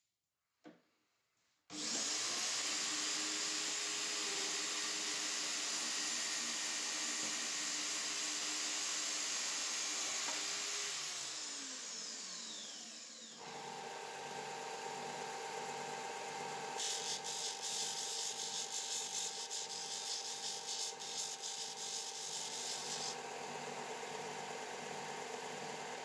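Metal-cutting chop saw starting up about two seconds in and running while cutting brass hex bar, then switched off and winding down, its pitch falling, around eleven to thirteen seconds in. A second bench machine then starts and runs steadily with a regular pulsing about twice a second, with a harsher grinding hiss from about seventeen to twenty-three seconds in.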